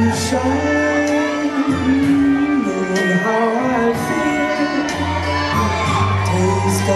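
Live band music with a singing voice over a steady bass, heard from the audience in a theatre hall.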